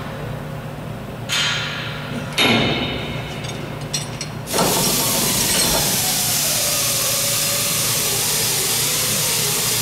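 Hand tools clanking against the steel wing jig: a couple of sharp metal strikes with ringing and some small clicks. About four and a half seconds in, a loud, steady hiss starts and carries on unchanged.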